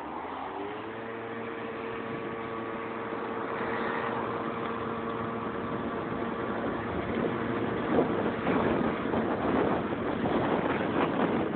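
Yamaha Neo's scooter engine rising in pitch as it pulls away about half a second in, then holding a steady note while riding. Wind and road noise build up over the second half.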